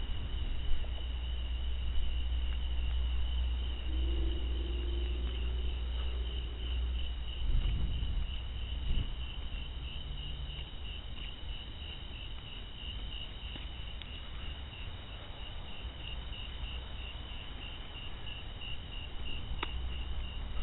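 Crickets chirping in a steady, high, pulsing trill, over a low rumble.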